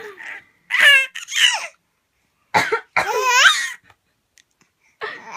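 A woman coughing in short bursts, each answered by a baby's high-pitched squealing laughter, in three rounds separated by brief pauses.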